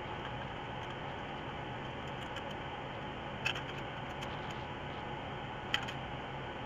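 Two light clicks of metal Yamaha SR500 muffler parts knocking together as they are handled and fitted, one about three and a half seconds in and one near six seconds, with a few fainter ticks, over a steady background hiss.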